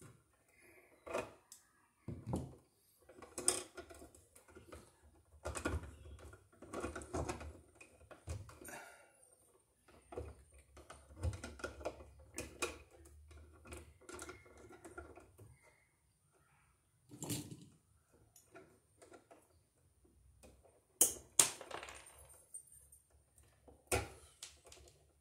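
Hand work on house wiring at an electrical box: scattered clicks, taps and rustles of pliers and stiff copper wires being bent and handled, with the two sharpest clicks near the end.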